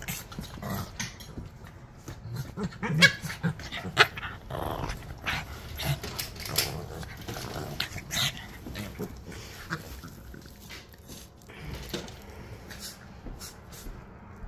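Two small dogs, a Shih Tzu and a Shih Tzu–Pomeranian cross, play-fighting: growling in quick short bursts. The bursts are loudest a few seconds in and grow sparser toward the end.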